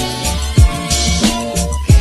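Outro background music: a beat with deep kick drum hits, about one every second and a bit, over bass and sustained chords.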